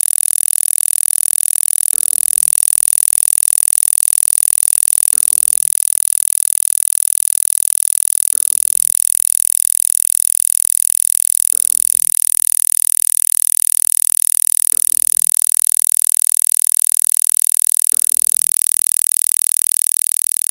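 40 Hz tone for gamma-frequency sound therapy: a steady buzzing pulse, strongest high in pitch, that fades out near the end.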